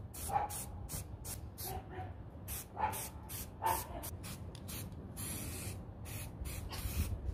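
Aerosol spray-paint can spraying black paint onto a van's roof-bar mount in many short puffs, a few a second, turning to longer bursts from about five seconds in.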